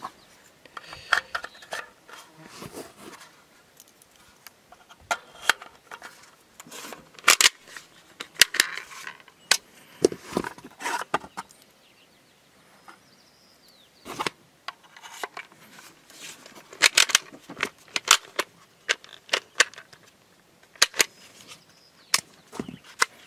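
5.56 mm green-tip 62-grain cartridges being pressed one by one from a stripper clip into a polymer AR-15 magazine: a string of irregular sharp clicks, the rounds snapping past the feed lips, with short pauses between.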